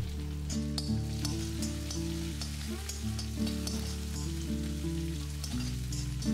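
Cumin seeds, green chillies, curry leaves and roasted peanuts sizzling in hot ghee in a cast iron kadai. A slotted spatula stirring them makes small scraping ticks against the pan. Soft background music with slowly changing notes plays underneath.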